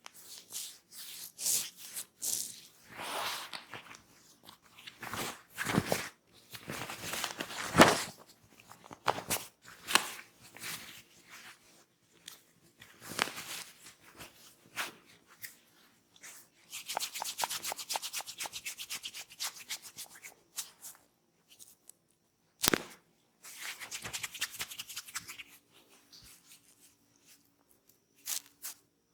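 Hands massaging a person's head and hair close to the microphone: irregular swishing rubbing strokes, with a long fast run of quick strokes in the middle. There is one sharp snap a little later.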